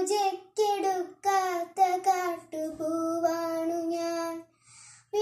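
A young girl's voice chanting a Malayalam poem to a sung melody, with no accompaniment: four short phrases, then one long held note that ends with a short breath near the end.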